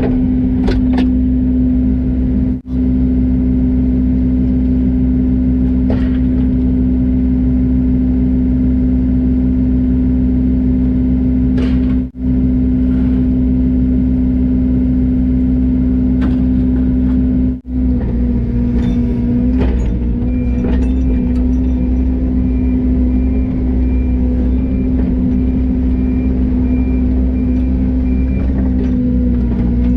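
Yanmar ViO80 mini excavator's diesel engine running at a steady, high working speed, with a slight change in pitch a little past halfway. The sound cuts out briefly three times.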